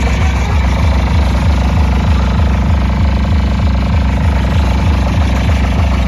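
Very loud, deep bass drone from a DJ sound truck's speaker stacks, holding steady with a fast, even flutter much like an idling engine.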